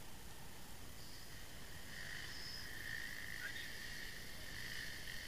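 A steady, high-pitched buzzing chorus of insects that swells about two seconds in.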